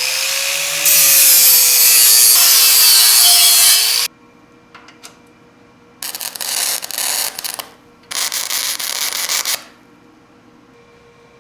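A power tool's motor spins up and works loudly for about four seconds, then cuts off. Two shorter bursts of working noise follow, each about a second and a half long.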